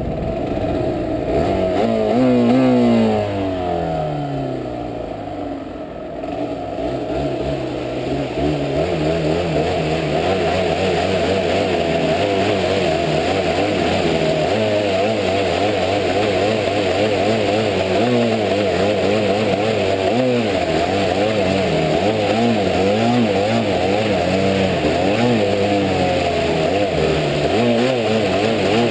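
Yamaha DT 125 R's two-stroke single-cylinder engine under way, its revs rising and falling. From about a quarter of the way in, water hisses and splashes as the bike rides through flood water.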